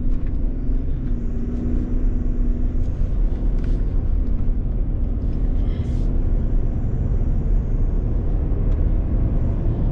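Cabin noise of a 2022 Toyota Tundra's 3.5-liter twin-turbo V6 pulling a trailer while the truck accelerates up to about 45 mph. It is a steady low rumble of engine and road, with a steady hum over the first few seconds.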